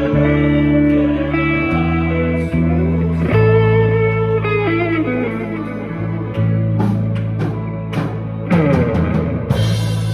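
Instrumental music played as a tone test: held low notes under a melody line that slides in pitch a few times, with short plucked-sounding attacks.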